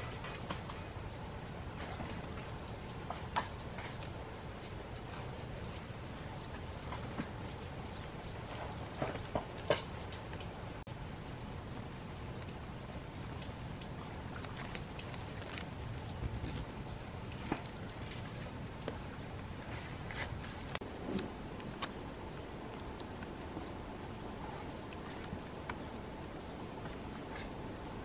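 A steady high-pitched insect chorus, crickets or similar, with scattered short sharp ticks and taps about every second or two.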